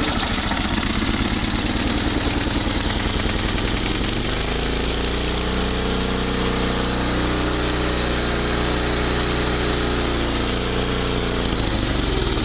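Small single-cylinder engine of a John Deere snowblower running just after being started, uneven at first and then settling into a steady speed about four seconds in.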